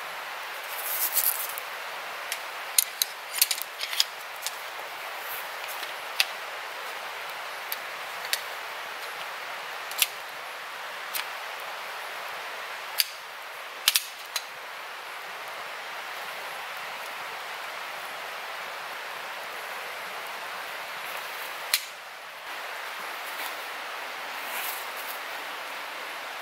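Small campfire of partly green twigs crackling, with sharp pops scattered irregularly, most of them in the first half. They sit over a steady hiss.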